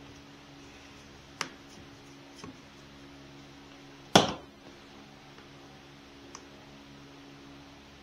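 Handling noises from working on a chainsaw at a workbench: a sharp click about a second and a half in, then one loud knock about four seconds in, with a few faint ticks after, over a steady low electrical hum.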